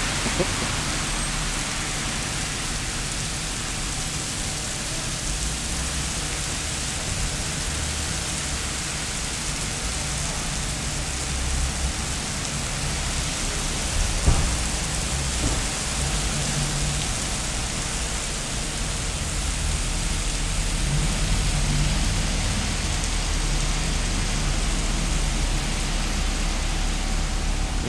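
Heavy rain falling steadily and pouring off the edge of a concrete overhang, a continuous hiss with a low rumble underneath. A single sharp knock comes about fourteen seconds in.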